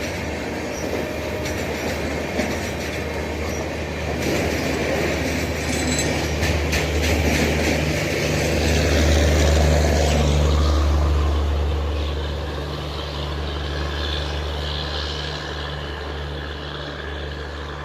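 EMD-built WDP4B diesel locomotives hauling a train: a deep, steady engine hum over the rumble of wheels on rail. It swells to its loudest about nine to eleven seconds in, then slowly fades. A quick run of rail clicks comes about six seconds in.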